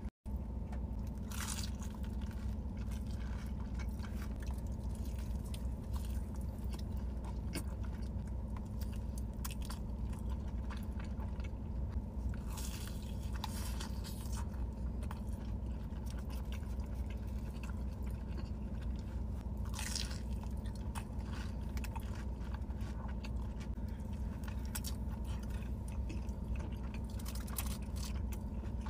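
Close-up eating sounds: a person chewing big mouthfuls of fried food, with crisp crunches now and then, over a steady low hum.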